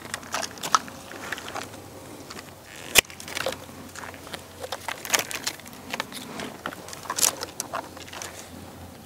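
Hand pruning shears snipping through climbing-rose canes: a series of sharp clicks and snaps, with rustling of the stems between cuts. The loudest snap comes about three seconds in.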